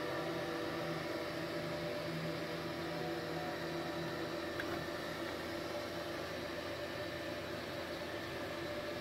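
Proweld MIG 250 inverter welder powered up and idling: its cooling fan runs with a steady whir and a low steady hum.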